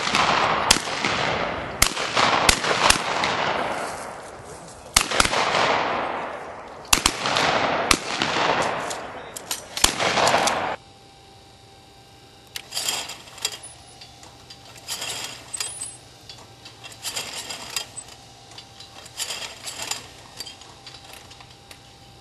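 Rapid shotgun fire from several shooters at clay targets, the shots overlapping, each with a long echoing tail; it ends abruptly about ten seconds in. Then comes a much quieter stretch with short bursts of clicking and clattering about every two seconds, from the multi-head clay trap machine working.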